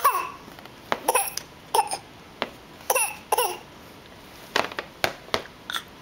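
A baby fake coughing: a string of short, forced coughs, about eight in six seconds, each falling in pitch.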